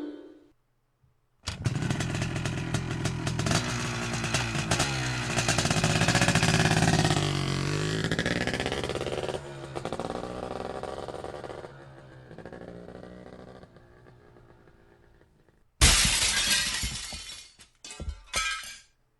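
Two sound effects in a row: a long, dense rumbling sound with wavering pitches that swells and then slowly fades away, then after a short gap a sudden loud crash that dies away, followed by a few smaller clatters.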